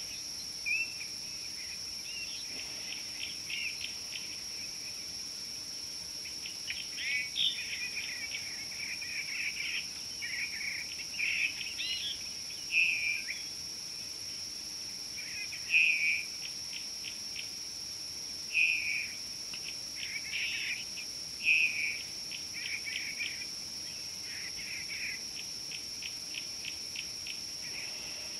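Steady high-pitched insect drone with several birds calling over it: short chirps, warbles and quick runs of ticks come and go, the loudest calls about halfway through and a little after.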